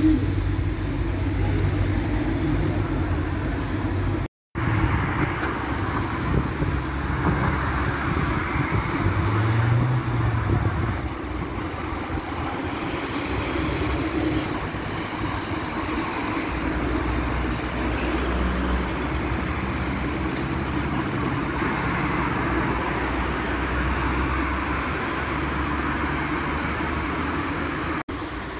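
City bus and road traffic running: a steady engine drone with road noise, broken by a moment of silence about four seconds in.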